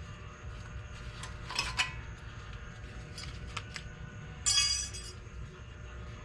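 Metal clinks and taps of brake pads with their steel shims and clips being handled: a few light clicks, then a louder ringing metallic clatter about four and a half seconds in.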